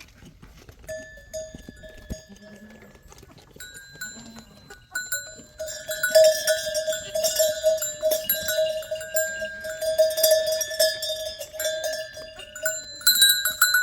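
Metal bells on a flock of sheep or goats, clanking and jingling as the animals move. The bells are faint at first and grow much louder about five or six seconds in, as the flock comes close.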